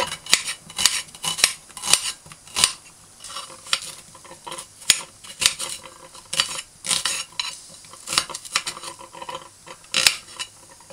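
Kitchen knife slicing an onion held in the hand, the blade clicking and knocking on a metal pan with each cut: an irregular run of short sharp taps, a few a second.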